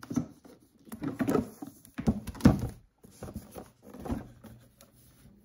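A cardboard gift box being handled and opened, with a string of irregular knocks and thuds, the loudest about two seconds in.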